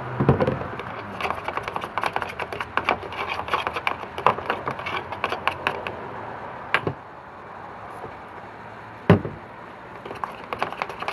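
Fluffy slime made with shaving gel being mixed and squished, giving a dense run of small sticky crackles and clicks for about six seconds, then two single sharp knocks a couple of seconds apart.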